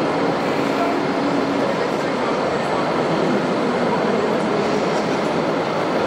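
Steady murmur of a crowd of spectators mixed with the general din of a large exhibition hall, with no single sound standing out.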